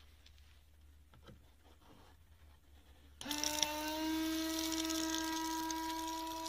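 About three seconds in, a small electric water pump switches on suddenly and runs with a steady whine that rises slightly as it gets up to speed, while water hisses out of the tap's nozzle in the car's front bumper.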